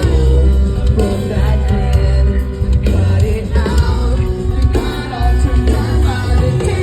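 Post-hardcore rock band playing live at full volume: a sung lead vocal over heavy bass and steady drum hits.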